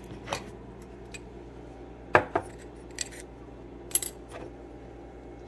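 Glass candle jars being handled and set down on a countertop: several short, light knocks and clinks at irregular intervals.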